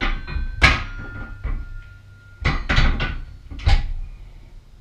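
Steel helmet rack knocking and clanking against the jaw horse as it is handled and set into the clamp: a series of sharp metal knocks, the first few leaving a brief metallic ring.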